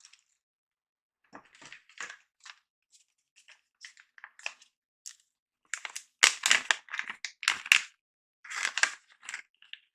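Plastic packaging crinkling and rustling in short irregular bursts as it is handled, louder and busier in the second half.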